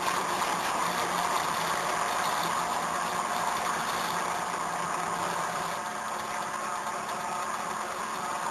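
Hot-wire CNC foam cutter's stepper motors running, a steady mechanical hum with a few held tones as the machine drives the wire through styrofoam; it eases off slightly about six seconds in.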